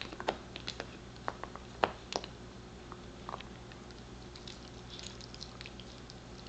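Pembroke Welsh Corgi gnawing a deer antler base, her teeth clicking and scraping on the hard antler. There are several sharp clicks in the first two seconds, one more a little after three seconds, then fainter, quicker ticks.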